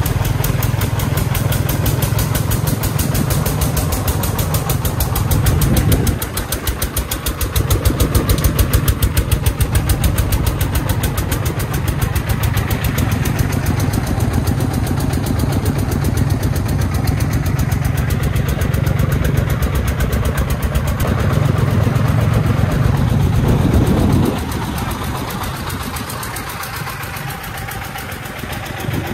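Diesel engine of a three-wheeled công nông farm truck running on the move, a fast, steady chugging pulse. It gets quieter in the last few seconds.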